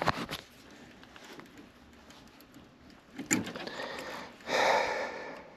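A few short clicks and handling noises from wiring being worked by hand inside an air handler, with a brief rushing noise near the end.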